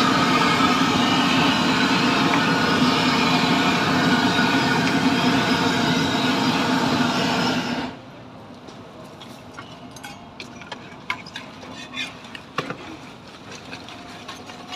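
A loud, steady engine-like hum with a dense hiss that cuts off abruptly about eight seconds in. After that it is much quieter, with scattered light crackles and clicks from a wok of dumplings frying in oil.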